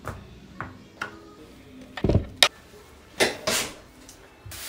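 Desk-setup handling sounds: a light knock, then a heavier thump followed by a sharp click about two seconds in, and two short scraping slides of items or hands on the desk and felt-like desk pad a little past three seconds.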